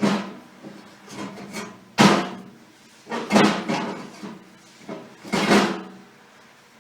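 Wheelbarrow inner tube being pulled and worked out of its tyre by hand: about five short rubbing, scuffing handling noises of rubber against rubber and rim, one with a sudden start.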